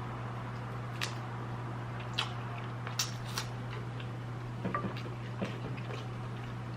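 Mouth sounds of eating shrimp and rice: scattered soft clicks and smacks of chewing, about six in a few seconds, over a steady low hum.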